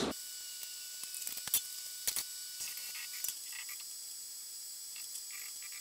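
Faint steady high hiss of workshop room tone with thin steady high tones, broken by a handful of short sharp clicks about one to three and a half seconds in.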